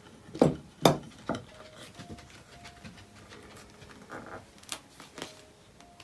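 A dried acrylic paint skin being picked at the edge with a fingernail and peeled up from a plastic surface: three sharp scraping clicks in the first second and a half, then two smaller ones near the end.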